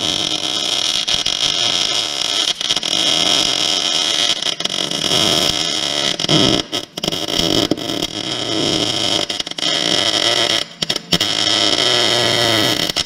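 Wire-feed (MIG) welding: a loud, continuous crackling hiss from the arc, broken by brief pauses about seven and eleven seconds in.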